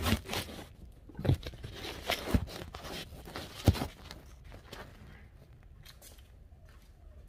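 Handling noise: a few knocks and rustles as things are gripped and moved, the sharpest about three and a half seconds in, then it goes quieter.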